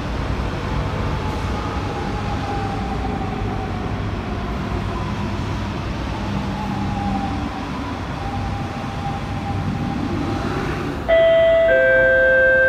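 MRT train running on the elevated track with a steady low rumble and a faint whine that rises and falls. About eleven seconds in, a loud chime of several held tones sounds over the station's public address, the signal that an announcement follows.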